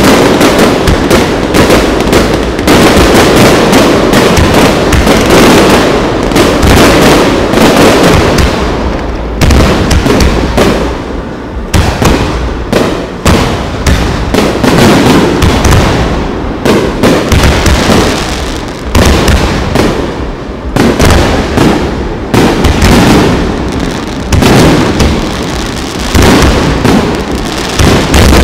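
Loud aerial firework shells bursting in a rapid, nearly continuous barrage of bangs and crackles, with short lulls about ten and twenty seconds in.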